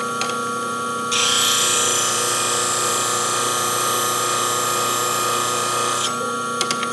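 Steel of a beading and parting tool grinding against a spinning CBN sharpening wheel, a steady hiss that starts about a second in and stops about six seconds in, over the wheel's steady hum. A few light clicks near the end.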